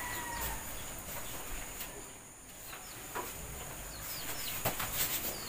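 Birds chirping faintly, with several short downward chirps from about halfway, over soft rustles of paper as a sheet is handed over and signed.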